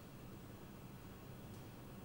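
Near silence: a faint steady low hum under a light hiss of background noise, with one faint tick about one and a half seconds in.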